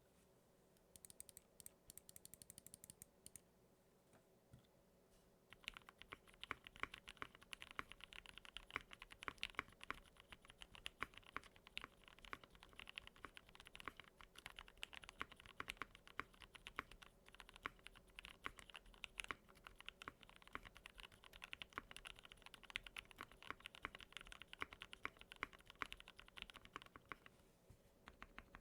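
Typing on an Akko Neon mechanical keyboard. A brief quick run of light clicks comes about a second in, then from about five and a half seconds there is fast, continuous typing that stops just before the end.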